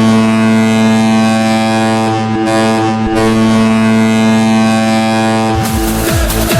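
Ice hockey goal horn, a fake (recorded stand-in) horn sound rather than a real air horn, sounding one long steady note that wavers briefly about two to three seconds in. Near the end the goal song cuts in: electronic dance music with a pounding kick drum at about two beats a second.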